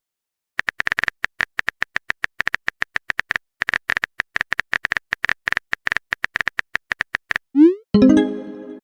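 Texting-app keyboard tap sounds: rapid, irregular clicks of a message being typed for about seven seconds. Then a quick rising whoosh of the message being sent, and a short chime near the end.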